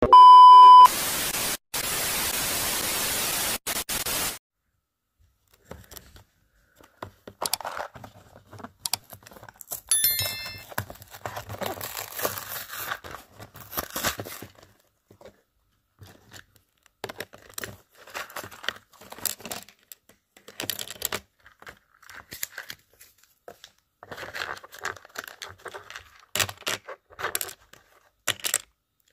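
A loud steady beep for about a second, then about three seconds of loud hiss like static. After that come intermittent rustling, crinkling and light clicks as a minifigure bag is torn open and small plastic Lego pieces are handled.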